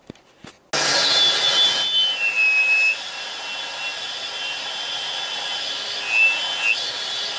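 Vacuum cleaner switched on about a second in and running steadily, sucking wood shavings out of the inside of a turned hollow form, with a faint whistle that shifts in pitch as the nozzle moves at the opening.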